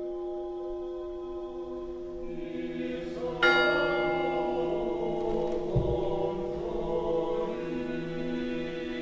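A large church bell ringing. The hum of one stroke fades over the first few seconds, then a new stroke about three and a half seconds in sets it ringing again with many overtones.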